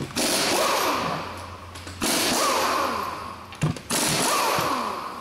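Pneumatic impact wrench loosening a car's wheel bolts: three bursts about two seconds apart, each followed by the air motor whining down in pitch once the trigger is let go. Two sharp clicks come just before the third burst.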